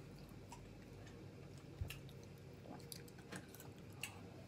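Faint chewing of a bite of soft, warm brownie, with a few soft clicks from the mouth.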